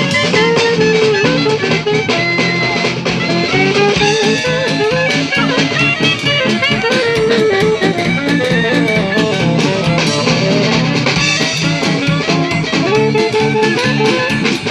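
Live Dixieland jazz from a small acoustic band: a bending melodic lead line over plucked guitar and a steady beat.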